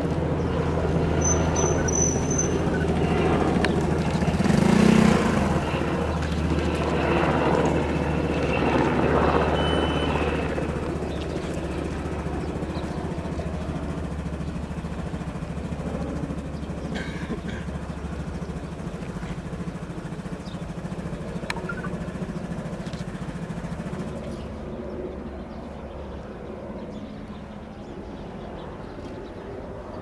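Sikorsky VH-60N WhiteHawk helicopter in flight, a steady drone of its rotors and twin turboshaft engines that fades gradually over the second half as it moves away, dying out near the end.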